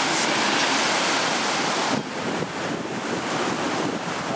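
Ocean surf washing on a beach, with wind buffeting the microphone; the sound drops abruptly to a lower, duller level about two seconds in.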